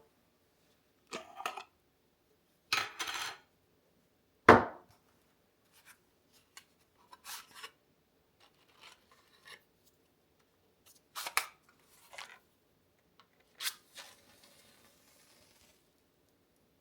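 Scattered handling sounds: about a dozen separate knocks, taps and short scrapes of objects being picked up and set down, with quiet between them. The loudest is a sharp knock about four and a half seconds in.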